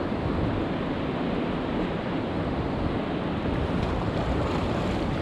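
Steady rushing of a fast river over rapids.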